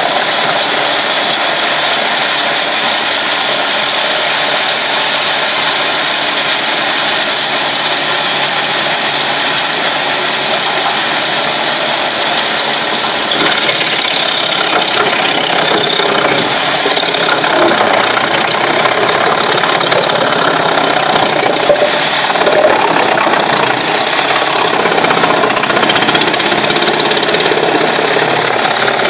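Eschlböck Biber 78 crane-fed wood chipper chipping logs under load: a loud, steady mix of engine and chipping noise, with a couple of short louder knocks about two-thirds of the way through.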